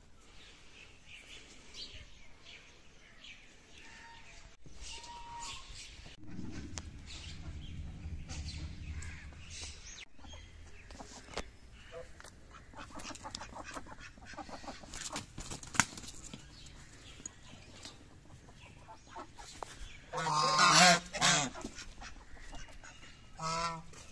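Domestic white geese honking: a loud run of honks near the end, then a shorter honk just after. Scattered clicks and a low rumble come before.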